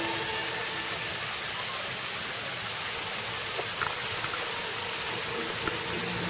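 Fountain water jets spraying and splashing back into the pool, a steady rushing hiss, with a few faint ticks near the middle.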